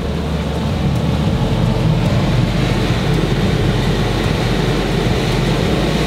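Twin MTU 12V2000 M96L V12 marine diesel engines running at about 900 rpm in troll mode, with the transmission clutches slipping: a steady low rumble that swells slightly over the first couple of seconds.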